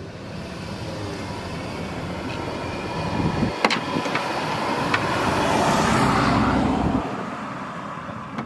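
A road vehicle going by: noise that swells to a peak about six seconds in and then fades, with a few sharp clicks around the middle.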